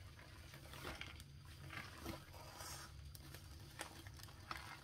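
Faint rustling and crinkling of a rolled diamond-painting canvas and its clear plastic cover film as it is unrolled and flattened by hand, with a few light taps, over a low steady hum.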